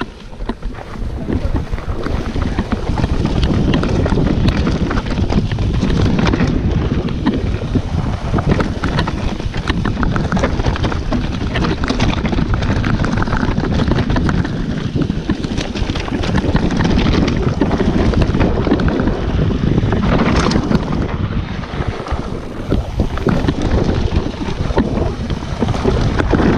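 Mountain bike descending a rocky gravel trail: wind rushing over the microphone, tyres crunching on loose stones and the bike rattling and knocking over rocks the whole way.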